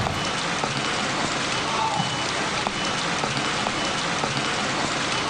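A steady, even hiss of noise like rain falling on a surface, with a few faint short high tones now and then.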